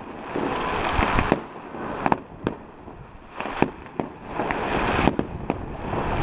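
Fireworks going off: a string of sharp bangs, several a second at times, with stretches of crackling in between.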